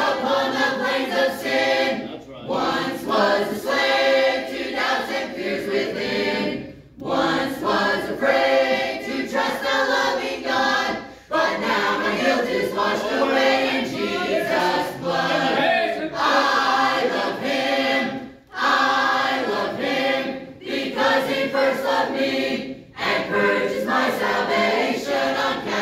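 Church choir of mixed voices, men, women and children, singing a hymn in unison phrases, with short breaks between phrases.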